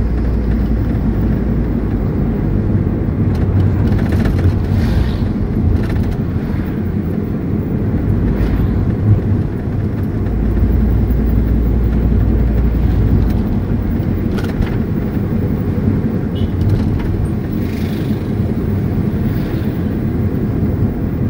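Steady road noise of a car heard from inside the cabin while driving: an even low rumble of engine and tyres on the road.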